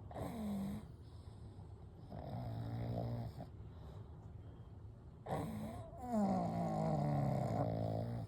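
Sleeping pugs snoring: a short snore at the start, a buzzing snore about two seconds in, then a quick noisy breath and a longer snore that falls in pitch near the end.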